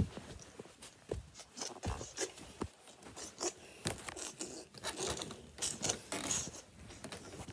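Handling noise from a handheld phone camera being moved about: irregular rubbing and scraping with soft knocks.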